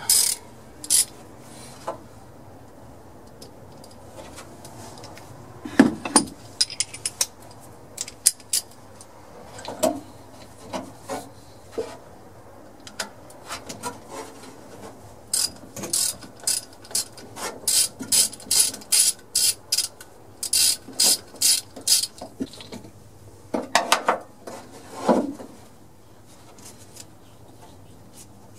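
Hand socket ratchet clicking in runs as a 12 mm bolt on the engine is turned, densest in the middle at about three clicks a second, with scattered metal knocks and two heavier knocks near the end.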